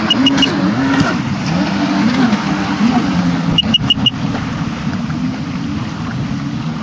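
Watercraft engine running, its note rising and falling over and over. A quick run of four short high pips comes at the start and again about halfway through.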